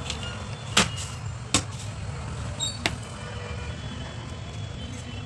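Three sharp taps or knocks a second or so apart, over a steady low background rumble.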